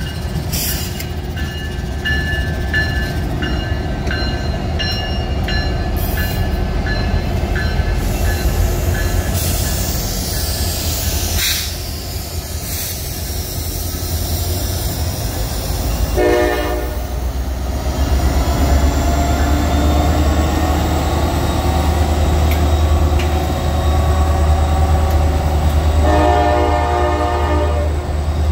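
Norfolk Southern freight train running by with a steady low rumble that builds in the second half, with thin squealing tones and clicks from the wheels in the first dozen seconds. A diesel locomotive horn sounds a short blast just past halfway and a longer one near the end.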